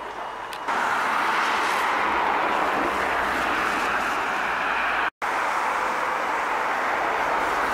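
Steady street traffic noise, an even hiss of cars on a wet road, that comes in abruptly about a second in and cuts out for a moment about five seconds in.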